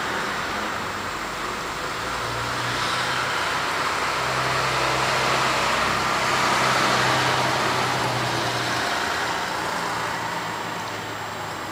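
A motor vehicle running nearby, its engine and road noise growing louder until about two-thirds of the way through, then fading.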